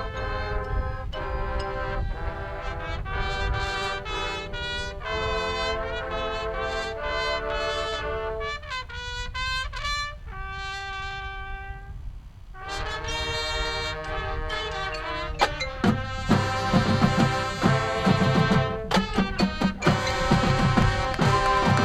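High school marching band playing: the brass section plays a melody in held chords, thins out to a soft, sparse passage about halfway through, then builds back up. Near the end the percussion comes in hard with loud, regular low hits under the horns.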